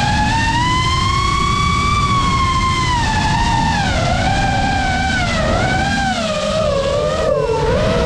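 FPV quadcopter's brushless motors whining, the pitch wavering up and down with the throttle: it rises about a second in, sinks again, and drops lower near the end. A low rushing noise runs beneath.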